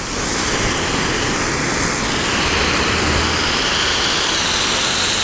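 Steady hiss of a strong water jet from a garden hose spray gun, fed by a pump drawing from a hand-drilled well during a flow test; it steps up slightly just after the start and then holds even.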